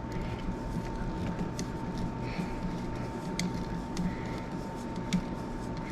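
Screwdriver tightening the terminal screws of an electrical outlet down onto the wires wrapped around them: small creaking and grinding, with a few sharp clicks.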